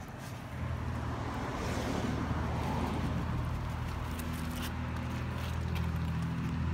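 A motor running with a steady low hum that grows louder about half a second in and then holds, with a few faint clicks over it.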